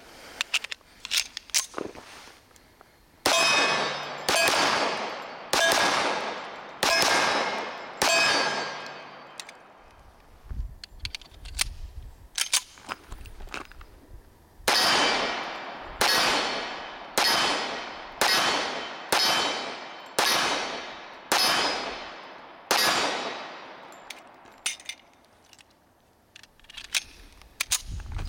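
Pistol shots from a Commander-size 1911 fired at a steady pace: five shots about a second apart, a pause with light clicks and handling clatter, then eight more shots at a similar pace. Each shot trails off over about a second.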